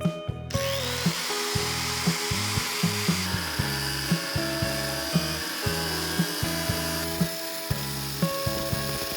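A small high-speed power tool spins up with a short rising whine about half a second in, then runs steadily with a hissy, high-pitched sound. Background music with a steady beat plays under it.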